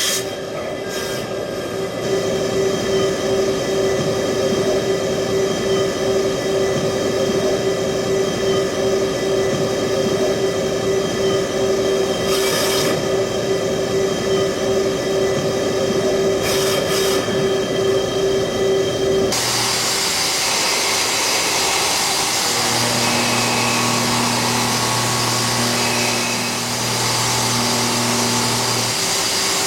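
Mazak Multiplex W-200Y CNC lathe running: steady machining noise with a pulsing mid-pitched tone, which changes abruptly about two-thirds of the way through to a different steady sound with two low hums.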